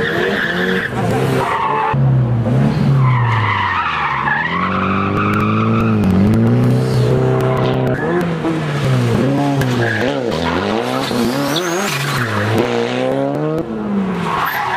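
Engine revving up and falling back again and again as a vehicle is thrown through tight pylon turns, with tyres squealing in stretches near the start, in the middle and near the end.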